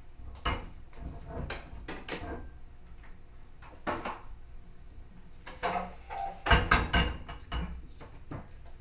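Small cast-iron frying pan knocking and scraping on a gas stove's metal grate as it is lifted off the burner and set back, with scattered clicks. A quick cluster of knocks about two-thirds of the way through is the loudest.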